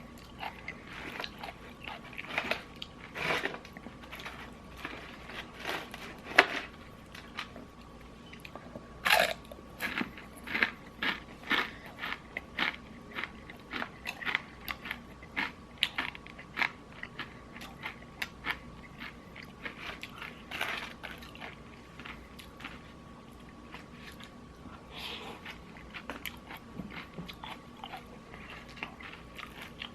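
Close-up biting and chewing of crispy Popeyes fried chicken: irregular crunches of the breaded skin, coming in quick runs of several at a time, with quieter chewing between them.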